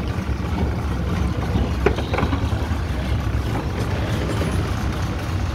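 40 hp Yamaha outboard motor idling steadily, with a couple of short knocks about two seconds in.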